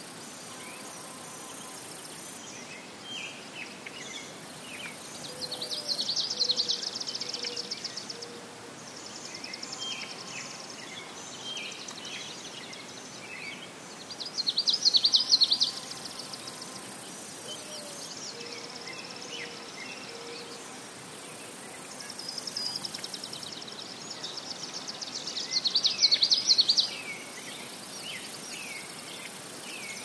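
Marsh birdsong: a blackbird's loud buzzy trill repeats three times, about every ten seconds, with short chirps from other birds in between. A thin, high insect drone starts and stops in the background.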